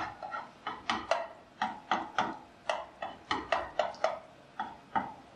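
A kitchen utensil tapping and knocking against cookware: a run of light, irregular knocks, about two or three a second, each with a short ring.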